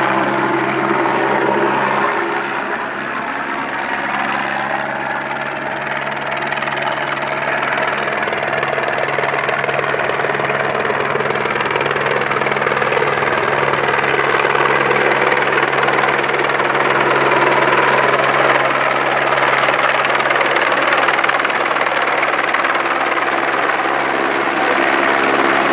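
Helicopter flying low overhead, its turbine engine and rotor giving a steady, loud hum that swells a little partway through.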